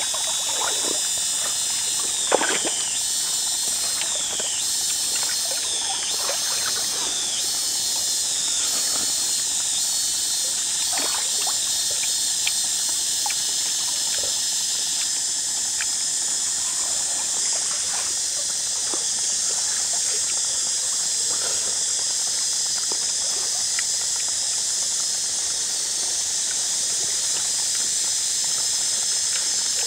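Outdoor ambience by a small forest stream: a steady high hiss with water trickling. A repeated falling call sounds through the first half, and small clicks come now and then.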